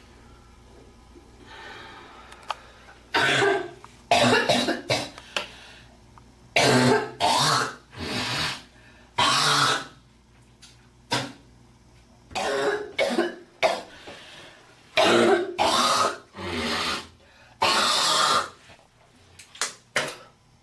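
A girl coughing repeatedly in clustered fits, with harsh throat clearing mixed in: about twenty sharp bursts, often two or three in quick succession.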